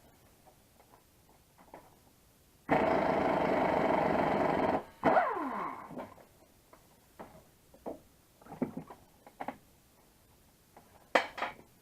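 Power tool, most likely an impact wrench, run in a steady burst of about two seconds on a nut welded to a broken exhaust manifold stud. A second burst follows, falling in pitch as it winds down while the stud backs out. Light clicks and knocks of handling the parts come after.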